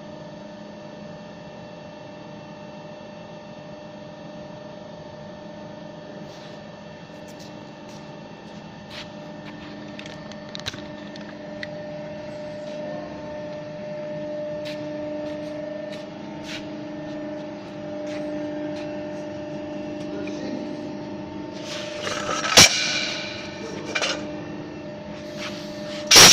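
CNC pipe bending machine running: a steady hum with several held tones, one of them swelling louder through the middle, and scattered clicks. Two loud metal clangs come near the end.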